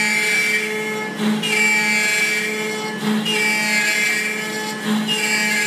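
CNC router spindle running with a steady high whine while its bit cuts a channel into a maple neck blank. The cutting noise swells and dips in a regular cycle about every two seconds as the bit makes repeated passes.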